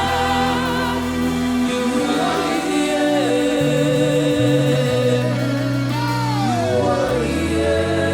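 Slow live gospel worship music: a band holds sustained chords over changing bass notes while voices sing long wordless notes with vibrato. One voice slides down in pitch about six seconds in.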